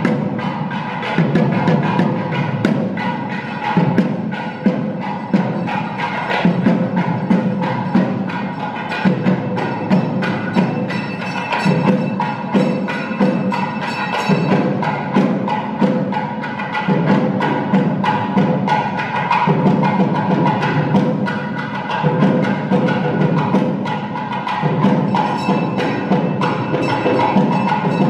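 Background music with a steady percussive beat and sustained tones.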